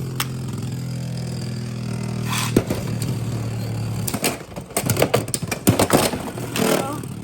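Beyblade X spinning tops whirring steadily in a plastic stadium, with one sharp hit about two and a half seconds in. From about four seconds in they clash repeatedly, with quick sharp clicks and clatter.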